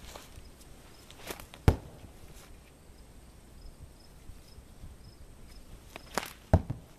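Two sling stones hitting a hanging mill-felt target: two dull thuds, one near two seconds in and one about five seconds later, each just after a brief whoosh. Faint insect chirping runs underneath.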